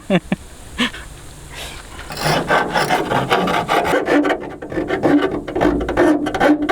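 Hand file scraping back and forth along the raw cut edge of a sheet-metal car bonnet, deburring it. The repeated strokes start about two seconds in.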